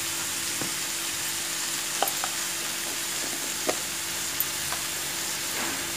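Sliced snake gourd, potato and onion frying in oil in a steel kadai, a steady sizzle with a few faint clicks and a faint steady hum under it.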